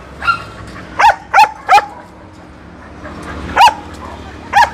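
A dog barking in short, sharp barks: three in quick succession about a second in, then two more spaced apart.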